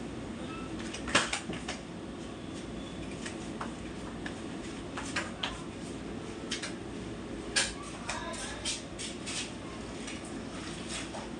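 Dishes and kitchenware clinking and knocking as they are handled at a kitchen counter, in scattered sharp strikes, the loudest about a second in, over a steady low hum.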